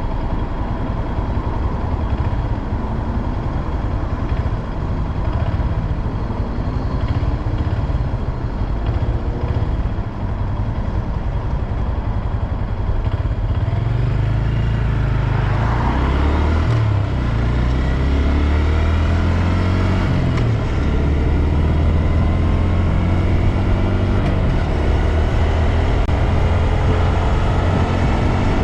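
Honda Grom's small single-cylinder engine running on the move, with wind and road rush over it. About halfway through the engine pitch sweeps and shifts, as with a change of revs or gear, then settles into a steadier lower note.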